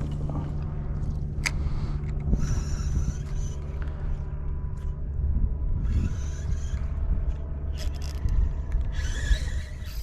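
Steady low hum of a fishing kayak's electric trolling motor running, with rumble on the microphone. Three short hissing noises come and go about two and a half, six and nine seconds in.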